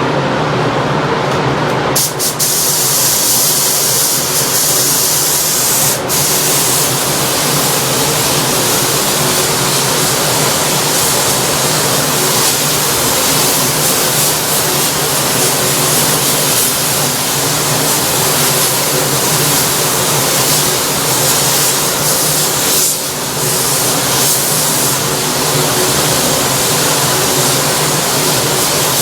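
Compressed-air spray gun hissing steadily as it sprays the plastic bumper, with brief breaks about 2, 6 and 23 seconds in.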